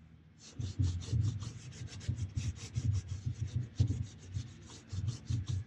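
Sandpaper rubbed by hand in quick back-and-forth strokes, several a second, around the dipstick hole of a Ford 7.3 diesel oil pan: cleaning the sealing surface so the dipstick adapter will seal.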